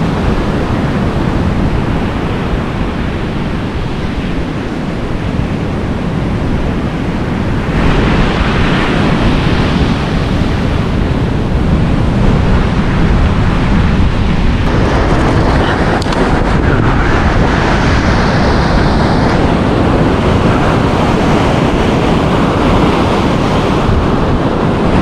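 Surf washing ashore, with wind buffeting the microphone; the noise grows louder about eight seconds in.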